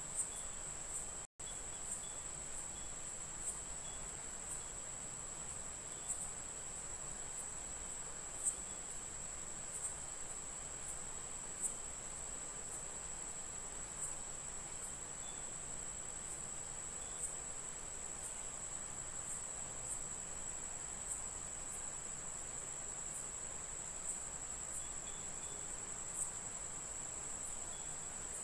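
A steady, high-pitched cricket trill with faint clicks about once a second. The sound cuts out for an instant about a second in.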